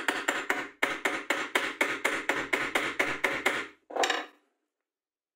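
Hammer striking the top of a steel pipe in quick, even blows, about five a second, driving the pipe down into a hole in a wooden block. The blows stop about three and a half seconds in, followed by one duller knock.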